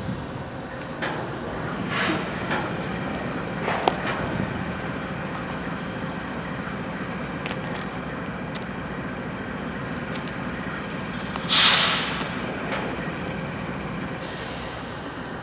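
Freight train's diesel locomotives idling with a steady low rumble, broken by short hisses of air about two and four seconds in and a louder hiss near the end, typical of the train's air brakes venting.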